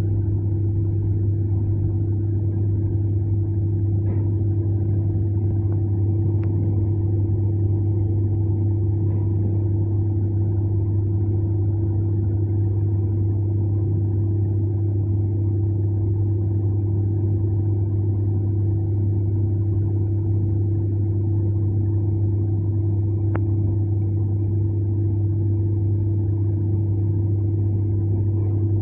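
ER9m electric multiple-unit train running between stations, heard from inside the carriage: a steady low hum with a second steady tone above it over even running noise, with a couple of faint clicks.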